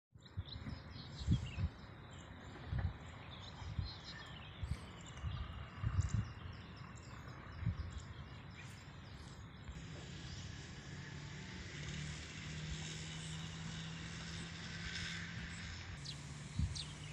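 Outdoor ambience with birds chirping and irregular low thumps on the phone's microphone. From about ten seconds in, a faint steady hum like a distant motor runs underneath.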